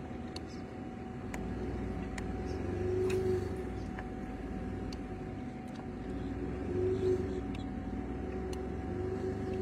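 A motor runs steadily, its drone swelling and fading about three times, over a low rumble.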